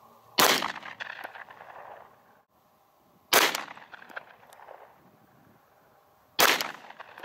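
Three shots from a Canik TP9 9mm pistol, about three seconds apart, each trailing off in a fading echo.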